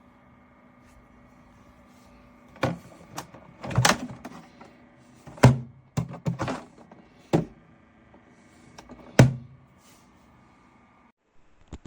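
Thermoelectric mini fridge running with a steady fan hum, interrupted by a series of about eight knocks and thunks in the middle. The hum stops suddenly near the end.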